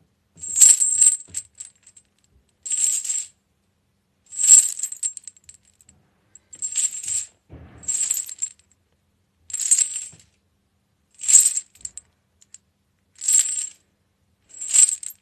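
Short bursts of metallic clinking and jingling, about nine, repeating roughly every one and a half to two seconds.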